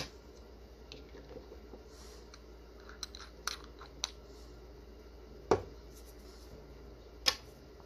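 Small clicks and taps of a head cement bottle and fly-tying tools being handled on a wooden desk. A few light ticks come first, then two sharper clicks about two seconds apart near the end.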